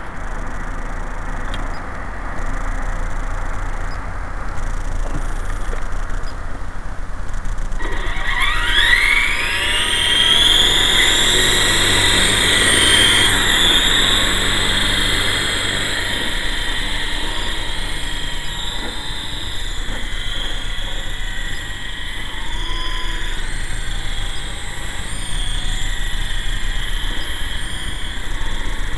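GT Model QS8006 RC helicopter's electric motor and rotors spinning up about eight seconds in: a whine that rises steeply in pitch, then runs as a steady high whine that wavers in pitch now and then. Before it spins up there is only outdoor background noise.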